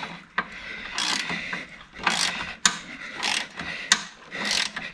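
Ratchet socket wrench worked back and forth on a bolt, its pawl rasping on each back-swing, four strokes about a second apart, with a few sharp metal clicks between them.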